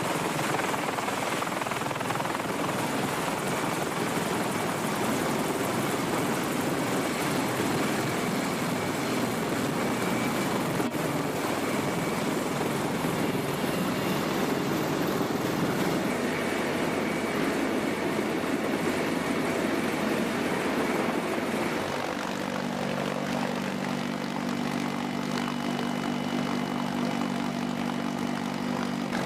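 CH-53E Super Stallion heavy-lift helicopter's three turboshaft engines and rotors running, a steady dense roar of noise. About 22 seconds in, the sound turns into a steadier hum with several low tones.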